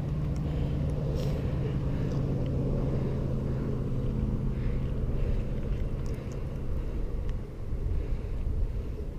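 An engine running with a steady low hum, which fades after about seven seconds.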